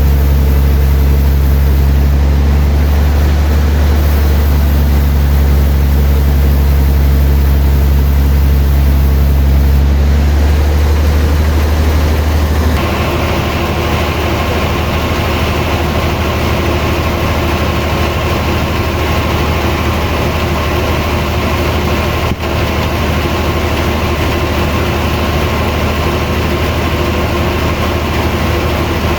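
Sawmill machinery running steadily with a deep, low engine hum. About halfway through the sound changes: the low hum weakens and a broader, higher-pitched noise comes in and holds steady.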